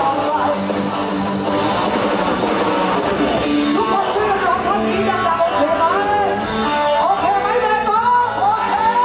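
A female vocalist singing into a microphone with a live band of drums and electric guitar, heard loud through the PA system.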